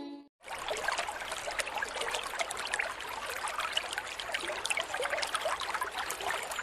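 Flowing stream water, starting about half a second in after a brief gap and running steadily.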